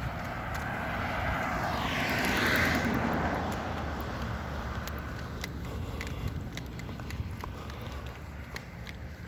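Road traffic noise: a steady low rumble, with a vehicle passing and swelling loudest about two to three seconds in before fading.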